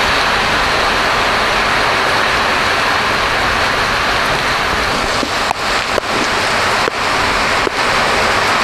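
Heavy rain pouring down on a street, a loud steady hiss, with a car driving off along the wet road near the start. In the second half the hiss dips briefly several times.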